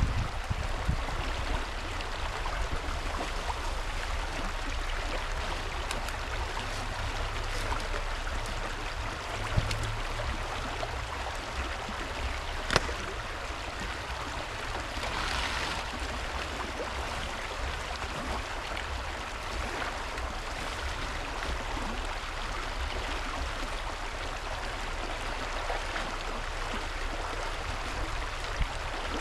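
Creek water flowing steadily over rocks, with a few scattered knocks, the sharpest about thirteen seconds in.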